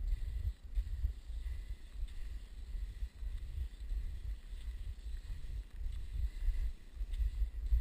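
Wind buffeting the camera's microphone: an uneven low rumble that keeps swelling and dropping, with a faint hiss above it.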